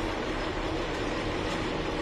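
Motorboat engine running steadily, a constant drone with a steady hum and no change in level.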